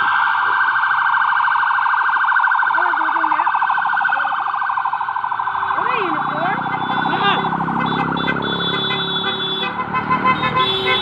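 Electronic siren sounding with a fast, even warble, fading out about nine seconds in. From about halfway through, a small engine can be heard passing on the road, along with a few short swooping tones.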